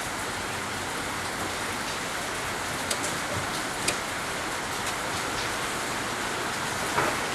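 Steady rain-like hiss of falling or spraying water, with a few light clicks and knocks, the sharpest near the end.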